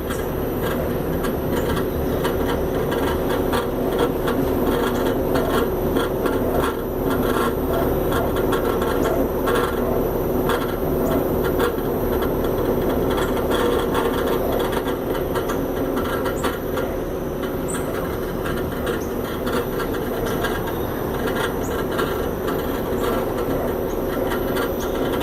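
Outdoor condenser unit of a Springer Midea inverter split air conditioner running with a steady hum and a rough, irregular rattling over it. This is the abnormal noise the unit has developed.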